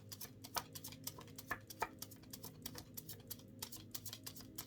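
A deck of oracle cards being shuffled by hand: a run of quick, light, irregular clicks and flicks, several a second.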